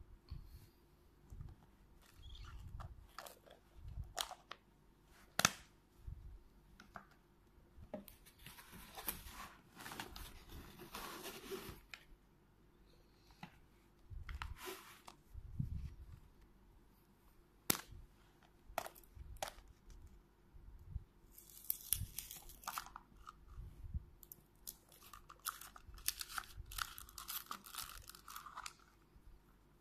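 Hands handling hard plastic surprise-egg capsules and small toy figures: scattered clicks and taps of plastic. Several longer bursts of plastic wrapper crinkling come in between.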